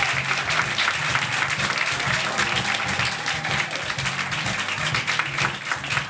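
Audience applauding and cheering at the end of a stand-up set, over background music with steady low notes.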